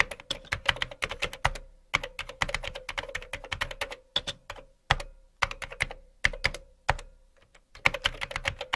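Typing on a computer keyboard: quick runs of keystroke clicks with a few short pauses, as a chat message is typed out.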